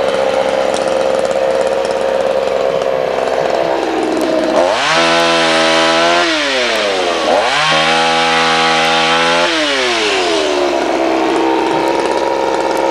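Chainsaw running steadily, revved up twice for about two seconds each, roughly five and seven and a half seconds in, with a short dip between, then settling back to its steady running.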